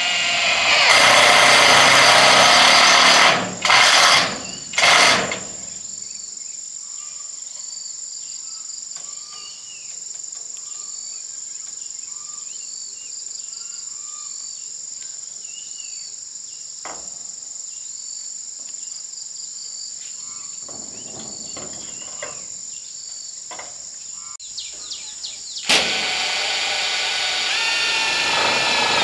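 A steady high insect buzz runs underneath throughout. It is broken by loud bursts of a power tool: one run of about two seconds near the start, two short bursts soon after, and a longer run near the end.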